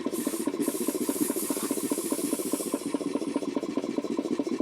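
Belt-driven air compressor pump, powered by an electric motor, running with a fast, even chugging pulse, with a hiss of air over the first three seconds. The drive belt is loose, which the owners take for the reason it sounds like it is slowing down.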